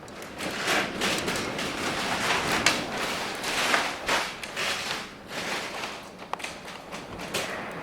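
Storm wind gusting over the microphone: a rough rushing hiss that rises and falls in uneven surges, with crackling buffeting pops.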